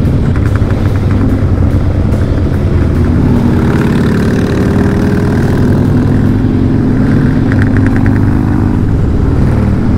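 Harley-Davidson Dyna Low Rider's V-twin engine running under way on the road, heard from the moving bike. Its note rises a little about three and a half seconds in as it pulls, then eases near the end.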